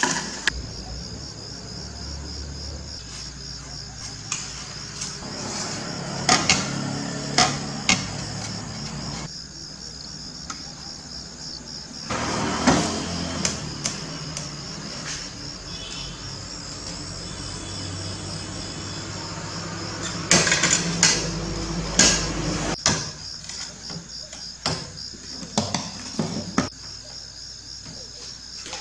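A steady, high, finely pulsing insect trill runs throughout. Over it come scattered sharp clicks and knocks as glass panes and masking tape are handled and set down on a tiled table.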